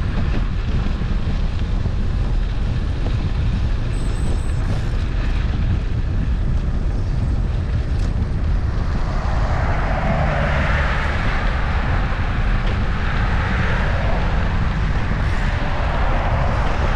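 Wind rumbling on the microphone while moving along the road, with a louder rushing noise swelling in and out from about nine seconds in.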